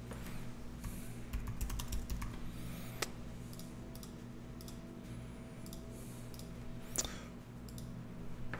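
Scattered clicks and taps of a computer mouse and keyboard, with a sharper click about three seconds in and the loudest about seven seconds in, over a faint steady hum.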